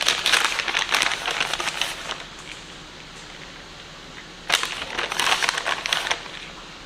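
Plastic shredded-cheese bag crinkling as it is handled and shaken over the pizza, in two spells with a quieter pause of a couple of seconds between them.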